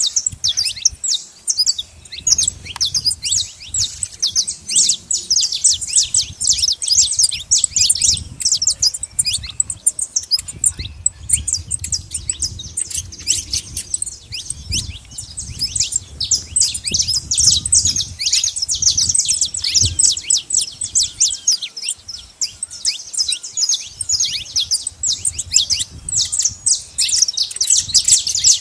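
Saffron finches chirping and singing in a dense, continuous chatter of rapid, overlapping high chirps, with a low rumble underneath at times.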